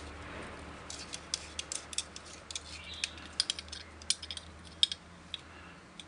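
Stainless digital caliper being slid and repositioned against a metal door strike plate: many small, irregular metallic clicks and light scrapes.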